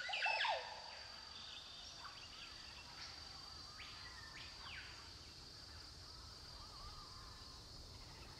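Woodland ambience with birds calling: one louder call in the first half second, then fainter short calls, over a steady high-pitched hum.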